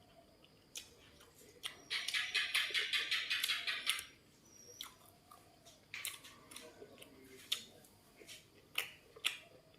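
Close-up crunchy chewing of crisp fried food, with a loud crackling crunch about two seconds in that lasts around two seconds, followed by softer chewing clicks.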